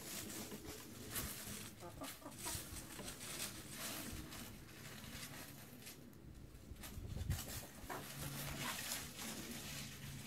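Hens clucking softly now and then while scratching through dry leaves and plant litter, with frequent short rustles.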